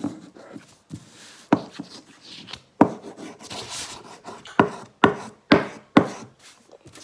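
Chalk rubbing and scraping across paper as a picture is coloured in, broken by about six sharp taps or knocks, the loudest sounds here.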